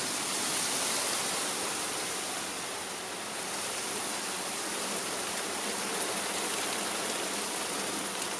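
Heavy rain falling steadily, a dense even hiss of water with no let-up.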